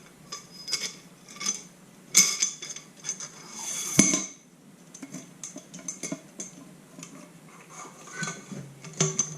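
Small metal motorcycle fork parts clinking and tapping against each other as they are handled during reassembly, each tap ringing briefly. About four seconds in, a short scrape ends in a louder knock.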